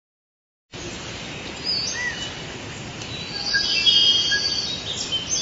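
Forest ambience: several birds whistling and chirping over a steady background hiss, starting about a second in, with a burst of trilling calls in the middle.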